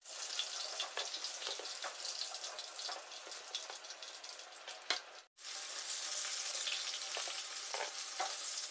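Batter-coated chicken pieces deep-frying in hot oil: a dense crackling sizzle with a few sharp clicks. It breaks off briefly about five seconds in, then carries on steadier.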